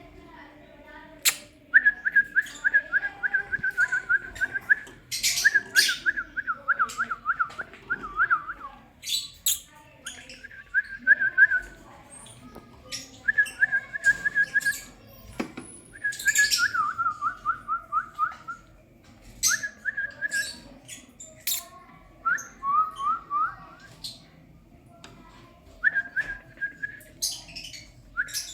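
Lovebirds calling: repeated runs of quick, pulsing chirps, each run lasting one to three seconds, mixed with short sharp high chirps.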